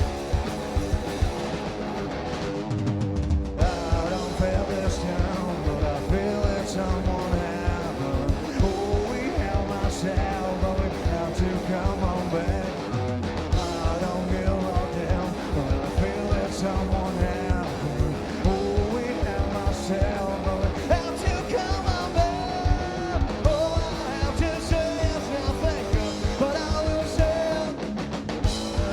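Live rock band playing: distorted electric guitars over bass and a steady drum beat, with a brief break about three seconds in before the full band comes back.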